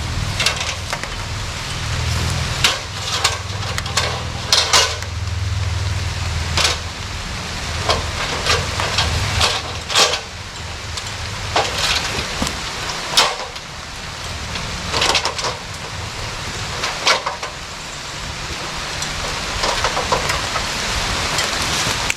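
Rain falling with a steady hiss and irregular sharp taps of drops, with a low thunder rumble dying away over the first several seconds.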